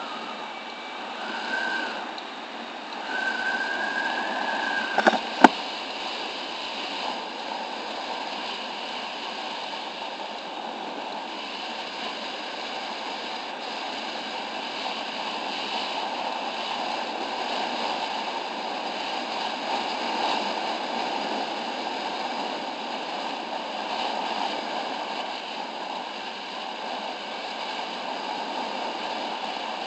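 Steady rushing wind and road noise from a motor scooter riding along a road, with the engine barely showing through. Within the first five seconds a short high whistle-like tone sounds twice, and a single sharp click comes about five seconds in.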